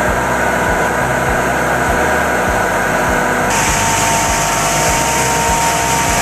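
Tub-type straw bale shredder running, a steady loud whirr and rush as its rotor tears the bale and blows out chopped straw. A regular low beat from background music sits underneath. The sound turns brighter and hissier about three and a half seconds in.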